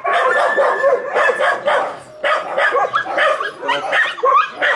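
Dogs yipping and barking in quick succession, several short high calls a second.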